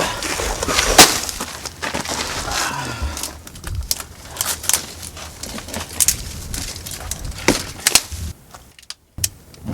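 Dry sticks and branches snapping and cracking in irregular sharp cracks, as firewood is broken up for a campfire; the loudest crack comes about a second in.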